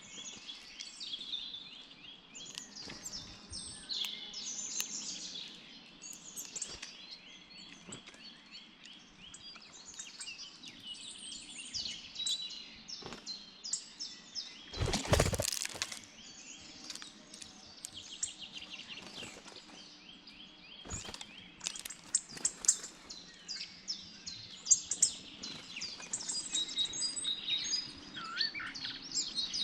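Many songbirds chirping and singing at once, with dense short high calls and trills throughout. About halfway through, a brief loud rush or thump drowns everything for about a second.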